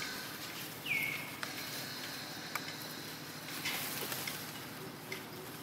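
Outdoor ambience with a steady high hiss and scattered faint clicks. About a second in, one short high animal call drops in pitch and then holds briefly.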